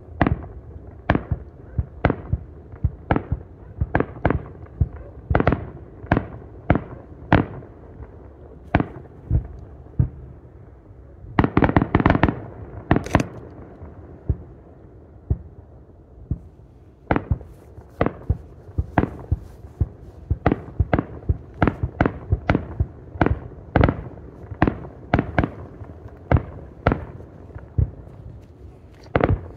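Aerial fireworks shells bursting in a quick run of sharp bangs, about one to two a second. A dense cluster of bursts comes about twelve seconds in, followed by a brief lull before the bangs pick up again.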